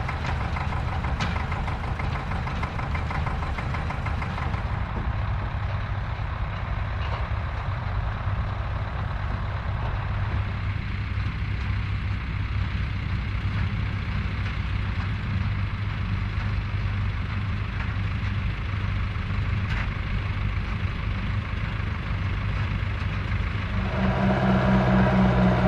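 Vintage tractor engine running steadily. Near the end a louder, steadier droning tone joins in.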